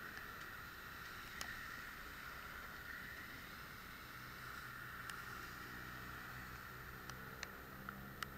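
Steady hiss of rain and wet traffic at a street crossing, with scattered light ticks. About halfway through, a vehicle engine's low hum joins as vans drive through the junction.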